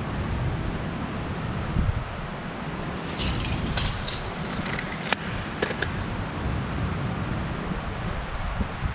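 Wind buffeting the microphone as a steady low rumble, with a few brief scrapes and clicks about halfway through.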